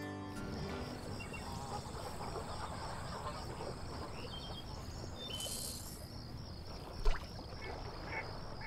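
Outdoor marsh ambience: insects chirping high-pitched in a steady, even rhythm over a low background hiss. A few short bird calls come about five seconds in, and a single sharp knock near seven seconds.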